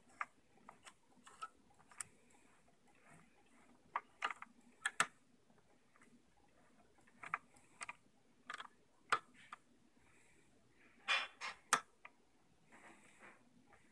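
Scattered, irregular soft clicks and ticks from a sewing machine's rotary hook and bobbin mechanism being worked slowly, with no motor running. The clicks come singly and in short clusters, the busiest about four to five seconds in and again near eleven to twelve seconds.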